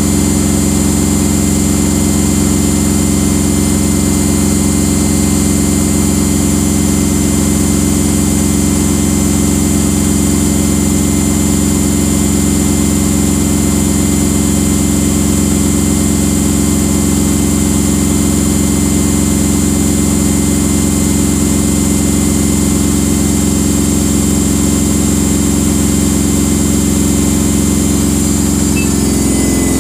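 Samsung front-loading washing machine spinning its drum at 1350 RPM, a steady, loud hum of several tones with a fast regular pulse underneath. Right at the end the pitch starts to drop as the drum begins to slow.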